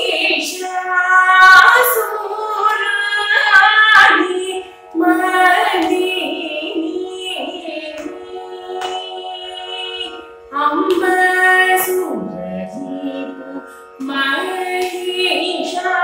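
A woman singing a Carnatic devotional song solo, in long ornamented phrases that slide and bend in pitch, over a steady drone. Her phrases break off briefly three times.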